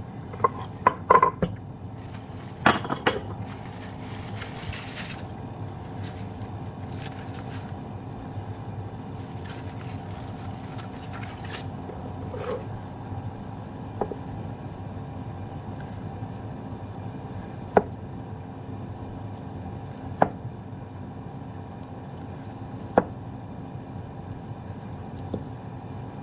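Kitchen knife slicing a firm, fridge-chilled seitan loaf on a wooden cutting board, the blade tapping the board sharply once every few seconds. Before the slicing, several knocks and a clatter as the board and knife are set down, then intermittent rustling.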